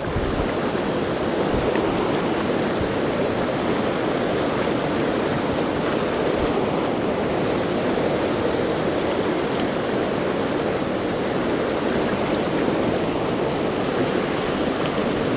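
Steady rush of whitewater from a mountain creek flowing hard and high, at about 500 cfs.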